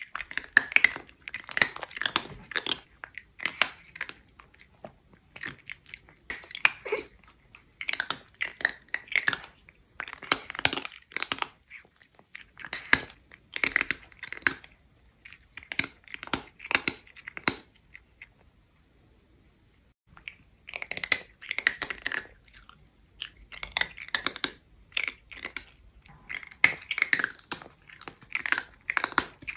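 A cat chewing crunchy food close to the microphone: rapid crisp crunches in bursts of a second or two, separated by short pauses, with one quiet stretch of about two seconds about two-thirds of the way through.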